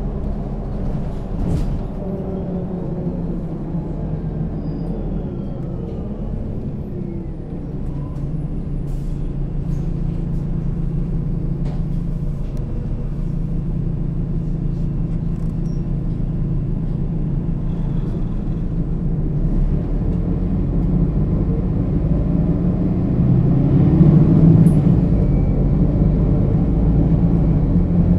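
Mercedes-Benz O 530 G Citaro articulated bus running under way, its engine and Voith automatic gearbox giving a steady low drone. The drone slowly grows louder through the middle and is loudest about three quarters of the way in.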